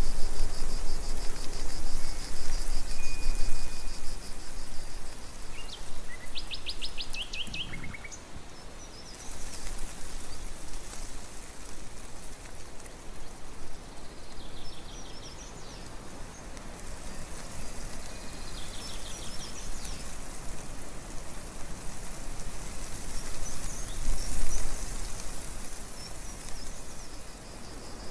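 Steady rushing outdoor noise, louder over the first several seconds, with birds chirping in short rapid trills a few times.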